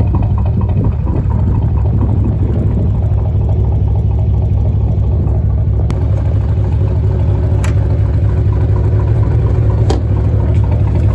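Yamaha DW-24 fishing boat's Yamaha engine idling with a steady low rumble, with a few faint clicks over it.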